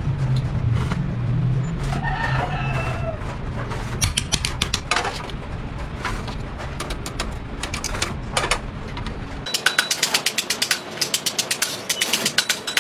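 Light metallic clicks and taps over a low steady hum while a cut-metal basket is handled, with a brief bird call about two seconds in. From about nine and a half seconds in, the hum stops and a hammer strikes a domed metal disc on a stake anvil in quick, sharp blows, about three or four a second.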